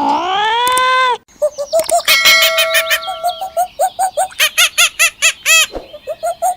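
A cat's drawn-out meow ends about a second in. It is followed by a hen clucking in quick, short repeated notes.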